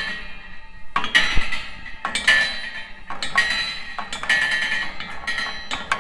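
Metal clinking and rattling in repeated bursts, about once a second, as the metal parts of a pasture gate in an electric fence are handled and knock together.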